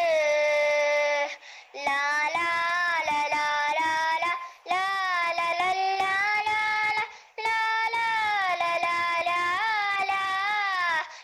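A child singing a devotional song solo in four long, drawn-out phrases with wavering held notes, pausing briefly for breath three times.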